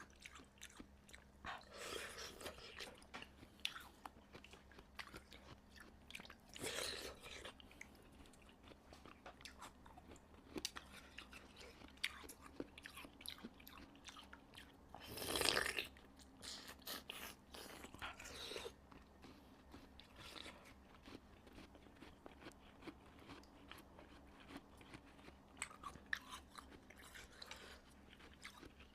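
Ice being bitten and chewed right at the microphone: a run of sharp crackles, with a few longer crunches and the loudest crunch about halfway through.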